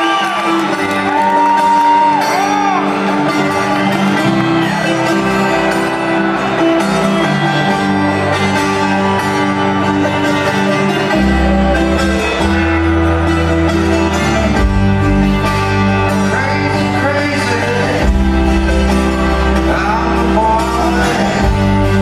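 Rock band playing live: held electric guitar chords open the song, and a heavy bass line comes in about eleven seconds in. A few audience whoops are heard over the opening seconds.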